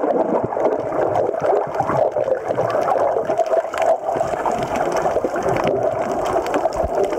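Muffled underwater sound picked up by a submerged camera: a steady rushing noise of the sea with many small clicks and crackles of water and bubbles.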